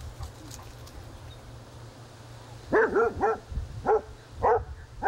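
A dog barking repeatedly, starting about halfway through: a quick run of three barks, then single barks about every half second.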